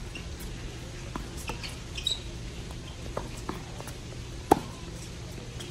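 Tennis ball hit back and forth by rackets and bouncing on a hard court: a run of separate sharp pops, the loudest and closest about four and a half seconds in. A couple of short high squeaks from sneakers on the court come about two seconds in.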